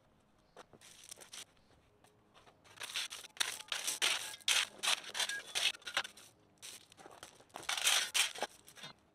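Coarse drain rock being tossed and spread over landscape fabric, stones rattling and crunching in clustered bursts from about three seconds in to six, and again near the end.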